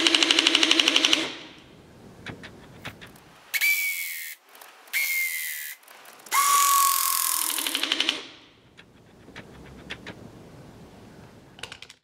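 Klauke battery-powered hydraulic crimping tool: its pump runs with a rapid pulsing hum and stops about a second in as the crimp on the cable lug is finished. Then come three hissing bursts with a whistle that slides slightly down in pitch, the last with the pump pulsing again, followed by a few light clicks.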